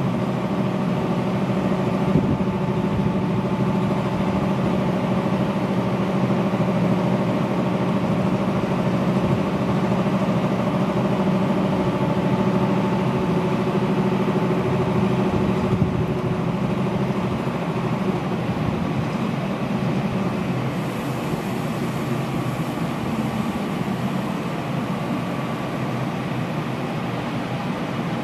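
ChS7 electric locomotive standing with its auxiliary machinery humming steadily, a pitched drone that weakens about two-thirds of the way through.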